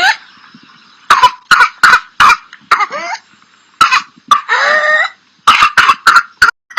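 A person with whooping cough (pertussis) in coughing fits: runs of quick, sharp coughs, each run followed by a long, drawn-in whooping breath with a gliding pitch. Three such cycles are heard. The whoop after a coughing fit is the hallmark sign of pertussis.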